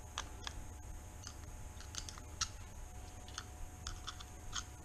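Faint, scattered clicks and taps of metal on metal as a small flat screwdriver levers the pinned gear sub-assembly of a Bafang M600 mid-drive motor up off its locating pins in the gearbox housing.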